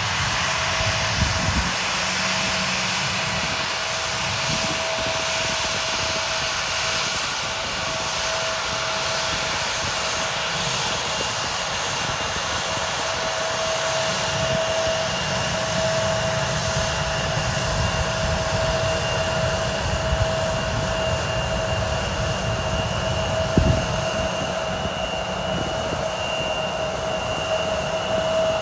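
Turbofan engines of an Embraer E-Jet airliner running at taxi power as it taxis past: a steady rushing hum with a constant high whine over it, and a couple of brief light knocks.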